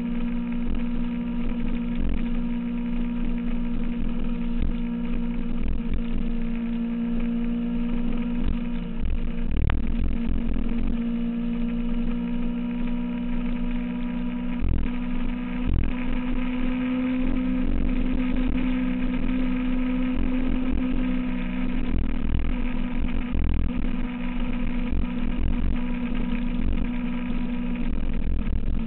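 2006 Kawasaki ZX-6R's inline-four engine running at a steady cruise, its pitch drifting slightly up and down, with irregular low thumps underneath.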